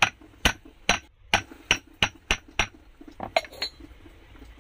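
A tumbler knocked down repeatedly over a brake booster piston to seat the diaphragm's lock ring. There are about eight sharp knocks at an even pace, roughly three a second, then three lighter ones a moment later.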